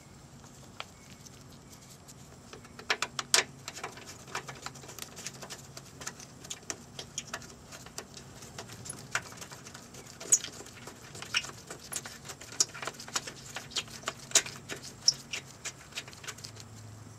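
Irregular sharp clicks and light crackling of a disposable-gloved hand handling hard plastic parts around the washer fluid reservoir and headlight housing. They start about three seconds in and keep on, unevenly spaced, until near the end.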